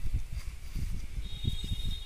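Low, irregular rumbling and bumping on the microphone of a hand-held camera being carried around while walking, with a faint thin high whistle coming in about a second in.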